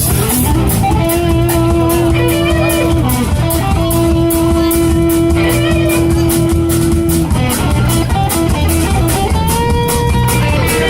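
Rock band playing: an electric guitar holds long sustained lead notes over a drum kit and bass, with a steady cymbal beat throughout.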